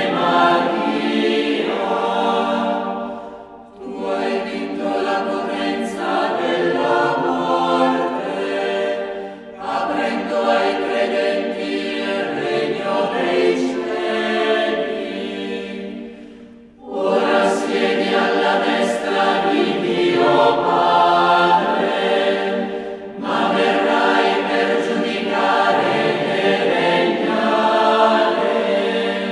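Choir singing in long, sustained phrases, with a short break between phrases about every six or seven seconds.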